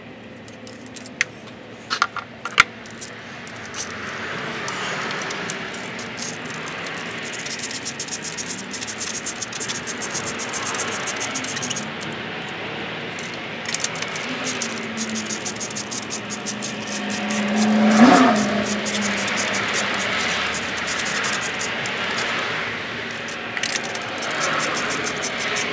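Hand ratchet clicking rapidly in long runs as a spark plug is turned in its well on a 2.4L Hyundai Theta engine, pausing briefly twice. A humming tone swells to the loudest point about two-thirds of the way through.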